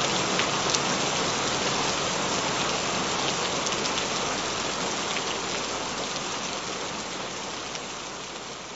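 Steady rain falling: a dense, even hiss with scattered drop ticks, gradually fading out over the second half.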